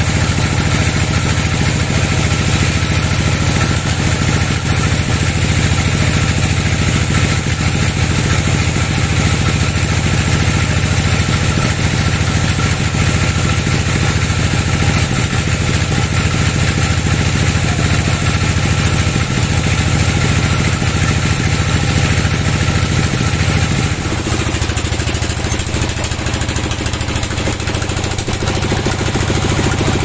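An engine running steadily at a constant speed, with a heavy low hum; its note shifts near the end.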